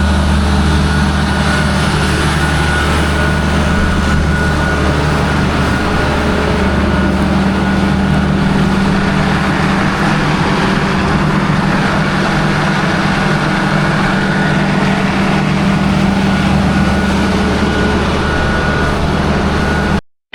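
Heavy diesel farm machine engine running steadily under load, with a thin steady whine on top. Its deep hum eases briefly about halfway through, then comes back.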